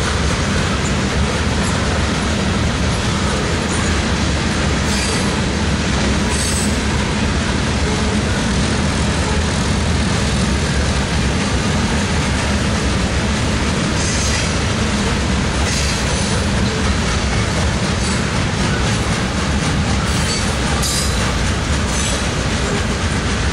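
Loaded covered hopper cars of a freight grain train rolling past: a steady, loud rumble of steel wheels on rail, with brief high-pitched wheel screeches several times.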